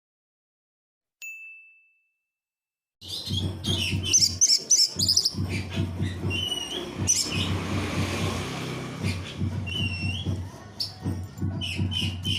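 Recorded songbird singing: after about three seconds of silence and one short high note, a fast run of high chirps, trills and whistled notes starts and keeps going, over a low pulsing backing.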